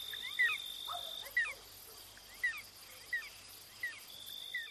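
Night-time ambience: a steady high cricket trill, with short falling chirps repeating at uneven intervals under a second apart. The trill drops out for a few seconds in the middle, while the chirps go on.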